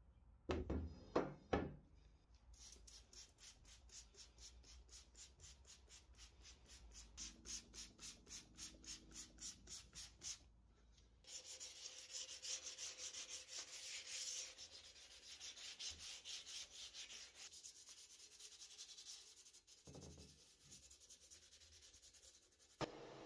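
Rhythmic back-and-forth rubbing strokes by hand on a part, after a few sharp knocks near the start. Past the middle the rubbing turns denser and hissier.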